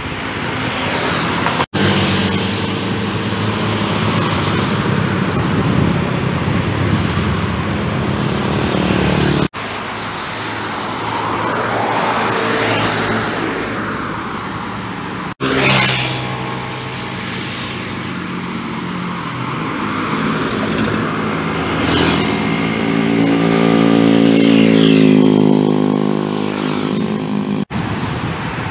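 Cars and motorcycles passing on a road, engine sound swelling and fading as each vehicle goes by, with tyre noise. The sound breaks off abruptly four times as the footage is cut between pass-bys.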